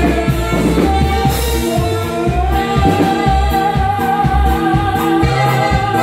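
Live norteño dance music: a sung melody over a steady pulsing bass beat, with one long wavering note held from about a second in to the end.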